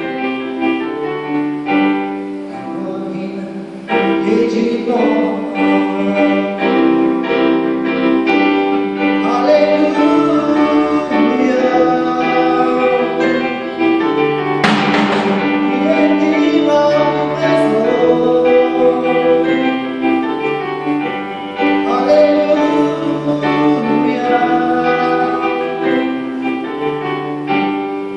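A man singing his self-written Albanian song live to his own electronic keyboard accompaniment, with held keyboard chords under the voice.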